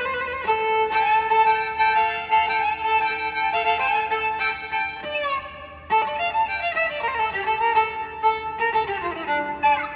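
A violin playing a quick melody of changing notes, fading briefly about five seconds in and starting again a moment later, then ending with a downward slide.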